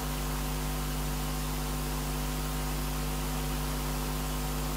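Steady electrical hum over even hiss, unchanging throughout: the buzz of mains interference in the recording.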